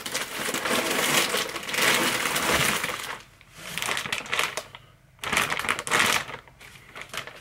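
Clear plastic bags and packaging rustling and crinkling as items are pulled out of a cardboard box, in several bursts with short pauses between.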